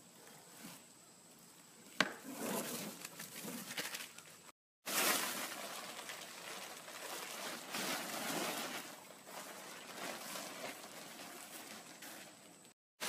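Rustling and crinkling of a plastic tarp and dry corn husks as the pile is gathered up, with a sharp click about two seconds in. The sound drops out twice for a moment.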